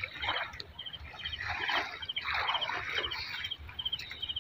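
Water splashing and sloshing in irregular bursts around a small wooden boat as it is boarded and moved. A faint high chirping repeats about twice a second behind it.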